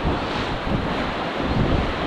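Wind buffeting the microphone in gusts over the steady wash of sea waves breaking against the rocks.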